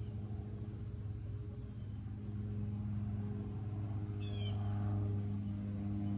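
A steady low drone runs throughout. A bird call, a short run of quick descending chirps, comes about four seconds in.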